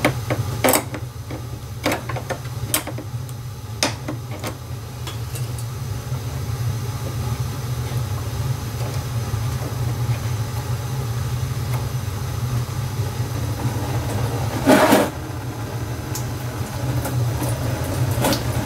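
Hand working a car radiator's drain plug, with scattered sharp clicks and knocks in the first few seconds, over a steady low hum. A louder brief noise comes about fifteen seconds in.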